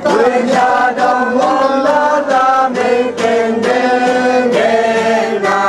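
A congregation of men, women and children singing together, a slow song with long held notes.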